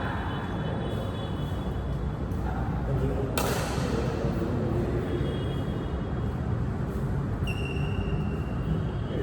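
Badminton hall din: a steady murmur of voices in a large room, a single sharp hit about three and a half seconds in, and a brief high squeak a little before the end.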